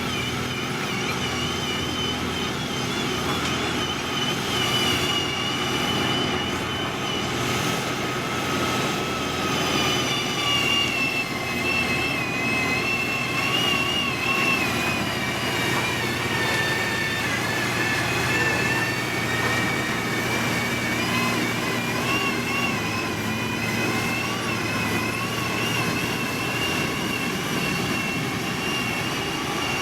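Heavy road-construction machinery running steadily: a low diesel engine hum under a high whine that wavers, sinking in pitch midway and climbing again near the end.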